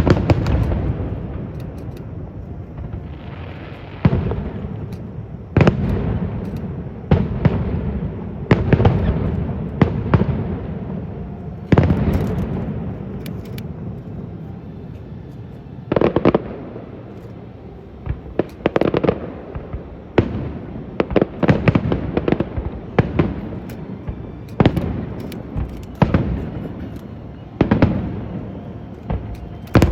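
Aerial fireworks shells bursting in a continuous barrage: sharp bangs every second or so, some in quick crackling clusters, each trailing off in a low rumbling echo.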